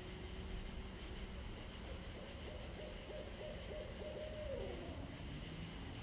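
An owl hooting faintly: one drawn-out hoot starts about two seconds in and drops in pitch at its end, a little before the five-second mark, over a steady background hiss.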